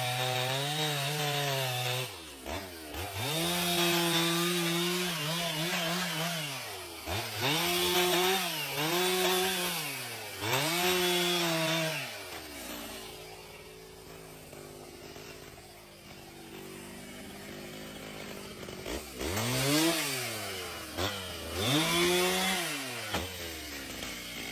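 Chainsaw engine revving up and down while cutting wood, its pitch rising and falling again and again. About halfway through it drops to a lower, quieter idle for several seconds, then revs up twice more.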